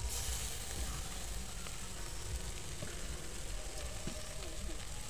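Omena (small lake fish) stewing with tomatoes and spices in a metal pot on a charcoal stove, a steady sizzling hiss with a few faint ticks, over a steady low rumble.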